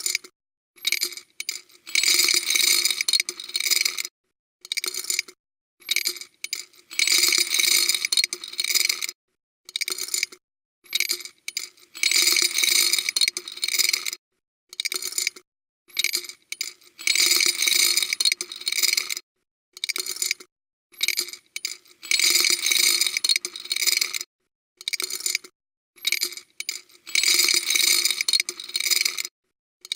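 Bursts of metallic clinking and jingling, like small hard pieces shaken or poured together, with a ringing note. They come in a repeating pattern, two or three short bursts and then one of about two seconds, about every five seconds, each cut off sharply into dead silence.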